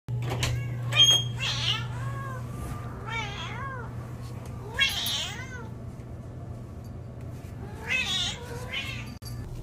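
Domestic cat meowing repeatedly, about five separate meows that rise and fall in pitch, the last two close together near the end.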